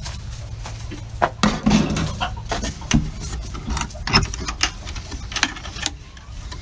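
Irregular clicks, knocks and rattles of a wooden chicken nest box being handled while an egg is collected.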